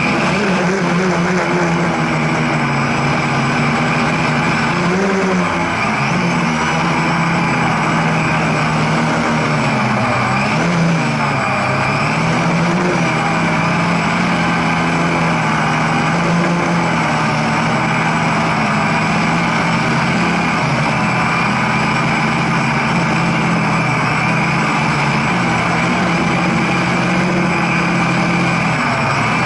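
Multirotor drone's electric motors and propellers whirring close to the onboard camera, a steady hum whose pitch dips and recovers about five seconds in and again around ten to twelve seconds in as the throttle changes.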